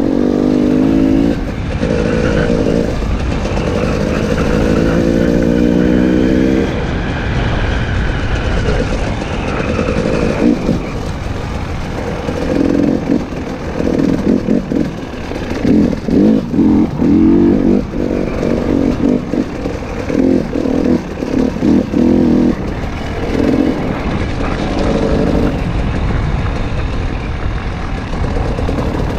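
KTM 300 XC-W single-cylinder two-stroke enduro engine being ridden along a trail, the throttle held fairly steady for the first several seconds, then opened and closed in short choppy bursts through the middle.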